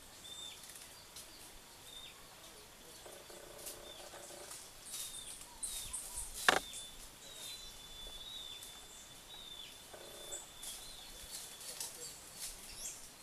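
Small birds chirping: short, high call notes that drop in pitch, repeated every second or so, with quick higher chirps and one held high note in the middle. A single sharp click comes about six and a half seconds in.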